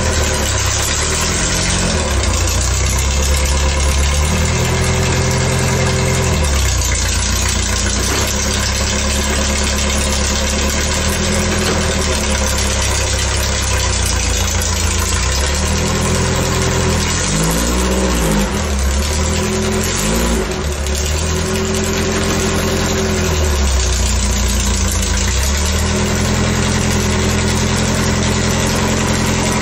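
Air-cooled VW Beetle flat-four engine running in a homemade ATV as it is driven slowly around a yard. The engine speed rises and falls in steps every few seconds.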